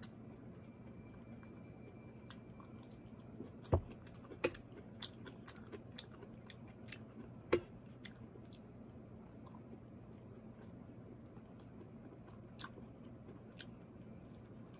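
A person chewing and biting broccoli, with scattered small clicks and a few sharper knocks.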